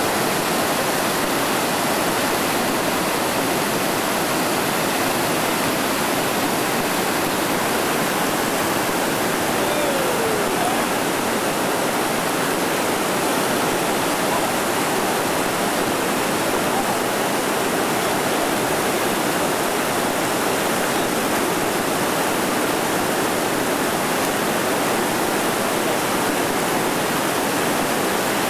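Whitewater rapid pouring over granite ledges: a steady, even rush of water.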